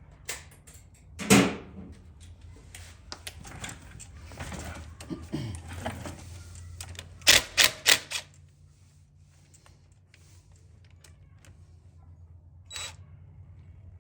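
Hand tools and metal parts clinking and clattering: a loud knock about a second in, scattered clicks, then four sharp clacks in quick succession around the middle and one more click near the end.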